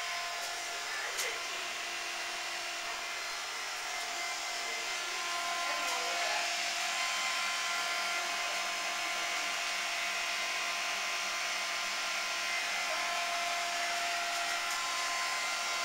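Steady hum and whine of running machinery, several constant tones over a hiss, growing slightly louder about five seconds in.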